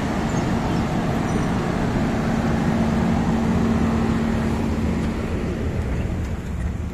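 A docked ferry's diesel engines running with a steady hum under a constant rush of machinery noise.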